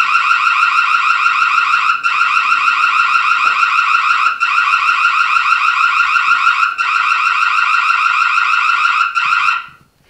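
Reolink Smart 2K+ video doorbell's built-in siren sounding, set off by motion detection: a loud, rapidly warbling electronic alarm with brief breaks about every two and a half seconds. It stops near the end.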